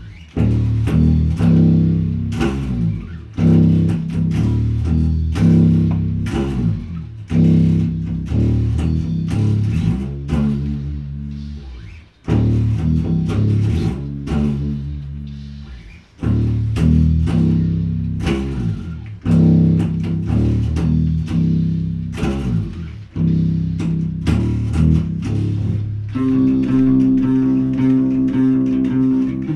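Bass guitar playing a repeated riff of low notes with sharp attacks and ringing decays, pausing briefly twice; from about 26 seconds in, a higher sustained part joins.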